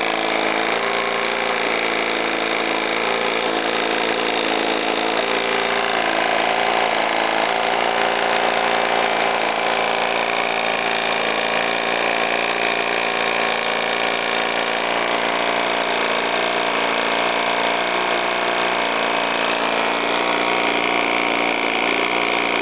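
Stuart V10 vertical model steam engine running steadily on steam, driving a small two-blade boat propeller that churns water in a test tank.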